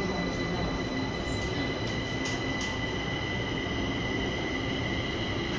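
Kaohsiung MRT three-car electric train running through a tunnel, heard from inside the car: a steady rumble of wheels on rail with a high, steady whine over it.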